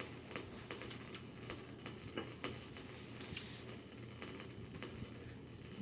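Close-miked eating sounds of a shrimp and snow crab seafood boil: irregular small clicks and crackles, a few a second, over a steady low background hum.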